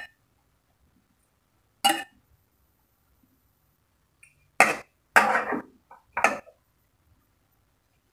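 A metal ladle clinking and scraping against a pan and plate while cooked onion rings are spooned out: five short clinks, the one about five seconds in drawn out into a scrape.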